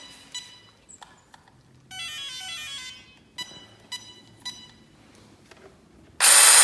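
A Castle Creations Mamba Monster X brushless ESC plays its power-on tones through the motor: a quick stepped run of beeps, then three short single beeps. Near the end the brushless motor and drivetrain suddenly spin up loudly, now running with the new sensor wire fitted.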